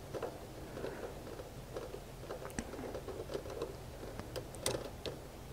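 Light, irregular clicks and ticks of a screwdriver working a screw out of an air conditioner contactor terminal, with wires being handled.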